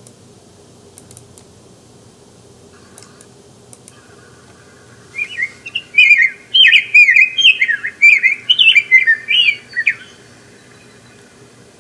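Rose-breasted grosbeak singing a sweet, melodious, robin-like song: a quick warbled run of rising and falling notes that starts about five seconds in and stops near the ten-second mark.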